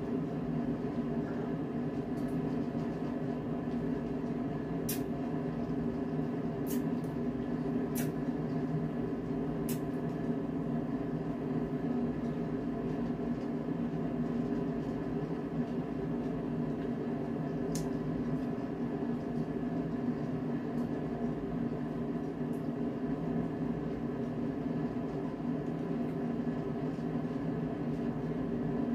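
Steady mechanical hum of a household appliance running in a small room. A few light clicks are scattered through it.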